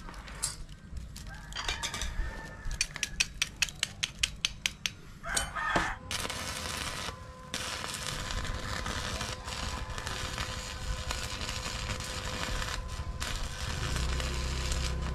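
Thin steel strips from a broken tape measure and saw blade clicking against each other as they are stacked on an anvil, a fast run of sharp clicks. From about six seconds in, an electric arc welder's steady crackle and hiss as the stacked billet is welded, with one short break.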